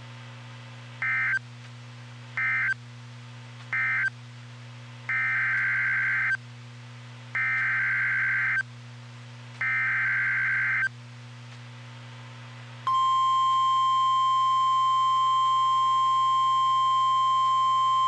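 NOAA Weather Radio Emergency Alert System data bursts: three short warbling bursts (the end-of-message code for the warning just read), then three longer bursts (the SAME header of the next alert). About 13 seconds in, the steady 1050 Hz Weather Radio warning alarm tone begins, all over a low constant hum.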